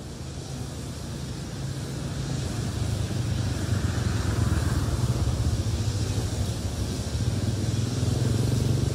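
Motor vehicle running: a steady low engine and road rumble that grows louder over the first few seconds, then holds.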